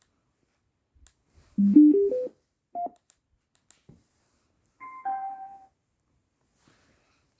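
Denver radio alarm clock sounding electronic tones through its speaker: a quick rising run of four notes, a single higher beep a moment later, then a falling two-note chime.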